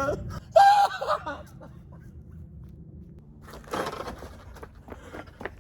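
A man's voice crying out briefly about half a second in, a panicked wordless wail or gasp. A low steady rumble runs underneath, with a short rush of noise near four seconds.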